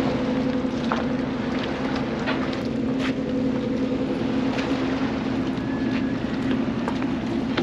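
Steady engine drone, a constant low hum with an even pitch, with a few faint clicks over it.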